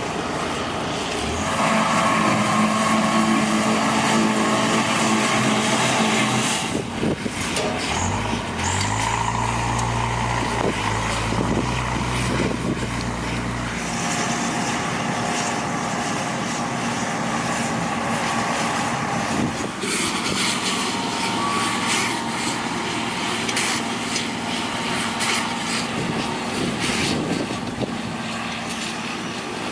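Farm machinery engines running steadily, tractors and harvesting machines. A deeper engine note comes in for several seconds, from about a quarter of the way in to about halfway.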